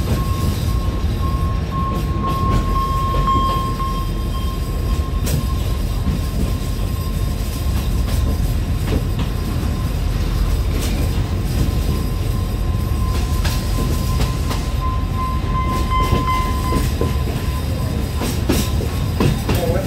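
Narrow-gauge Alishan Forest Railway passenger train running slowly, heard on board: a steady low rumble with scattered clicks from the wheels and track, and a thin high whine for most of it that fades out near the end.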